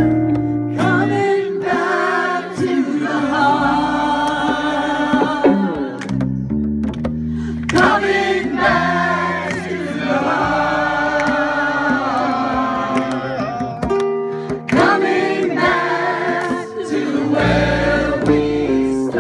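A mixed group of voices singing together in chorus, with acoustic guitar and bass accompaniment, in phrases broken by short pauses.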